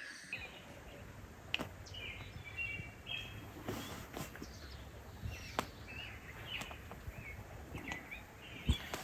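Small birds chirping in short, scattered phrases over a steady outdoor background, with a few sharp clicks among them.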